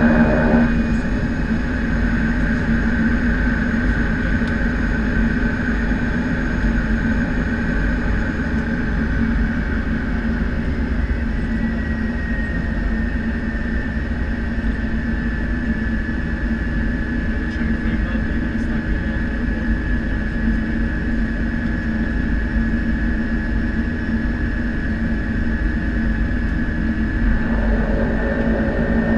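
Cessna 208B Caravan's PT6A turboprop engine and propeller running, heard inside the cockpit during the landing roll-out and taxi: a steady, heavy drone with a high whine that drops a little in pitch about twelve seconds in.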